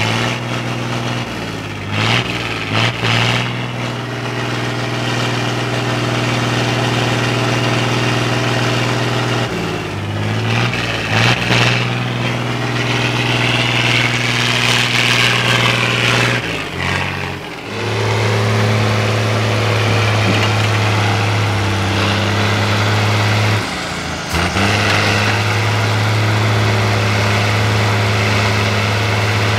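Engines of off-road trial trucks working under load. First a red IFA 4x4's engine with its revs rising and falling. About two thirds in, after a break, a second trial truck's engine runs steadily as it climbs.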